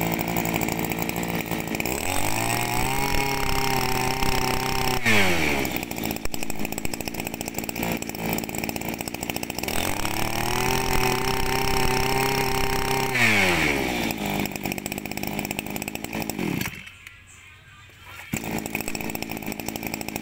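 Echo 26cc two-stroke brush cutter engine running: it idles, is revved up twice and held at high revs for about three seconds each time, then drops back to idle. The sound falls away briefly near the end and then picks up again.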